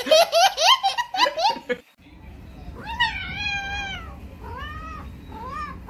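Rapid, high-pitched giggling laughter for the first two seconds. Then a cat meows: one long drawn-out meow about three seconds in, followed by two shorter meows.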